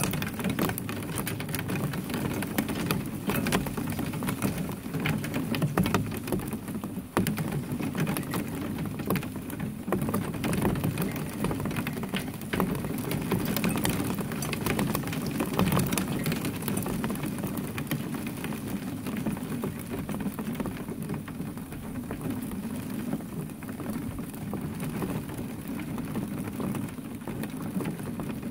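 A steady shower of rain falling and pattering on hard surfaces, with many separate sharp drop ticks throughout.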